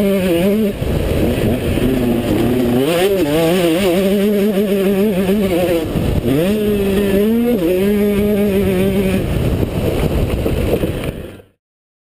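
Two-stroke motocross bike engine on a lap, revving up and down through the gears, its pitch repeatedly climbing then dropping sharply, with a deep dip about six seconds in. The sound stops abruptly near the end.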